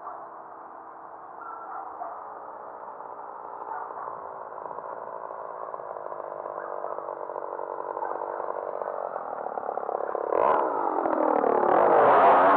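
Radio-controlled Sbach aerobatic model plane's motor and propeller, growing steadily louder as the plane approaches. Near the end it gets much louder, with the pitch sweeping up and down as the plane passes close overhead.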